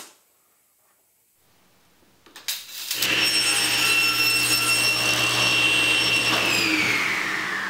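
Table saw running at full speed while a board is pushed through on a crosscut sled. Near the end it is switched off, and its whine falls steadily in pitch as the blade winds down.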